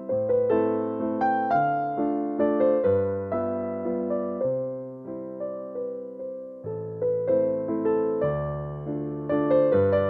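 Background piano music: single notes and chords struck one after another, each left to ring and fade.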